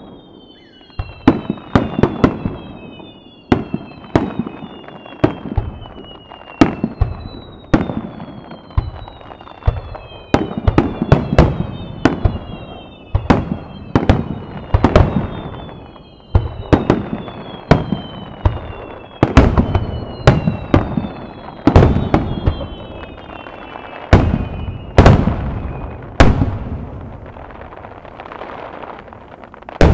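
Japanese aerial fireworks barrage: a rapid run of sharp bangs from shell launches and bursts, about one to two a second, with high whistles falling in pitch over most of the run. It thins out near the end to a hissing tail after a last few heavy bursts.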